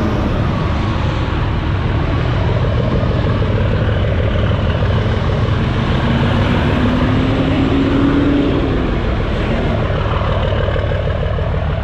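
Diesel pickup truck engine idling steadily, close by, with a humming tone that rises a little between about six and nine seconds in.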